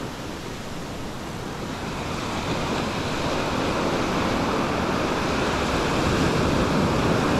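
Surf breaking and washing up over a sandy beach, a steady rushing wash that swells gradually from about two seconds in.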